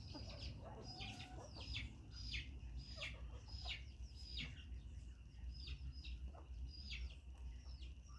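Chickens calling: a run of short, high, falling peeps, about two a second, with a lower cluck about a second in.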